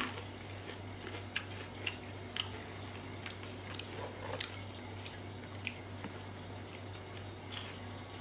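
Close-miked chewing of fried banana-stem chips that have gone soft, with scattered small crunches and mouth clicks about once a second. A steady low hum runs underneath.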